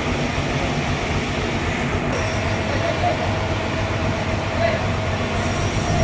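Band sawmill machinery running steadily, a continuous drone with a steady whine over a low hum.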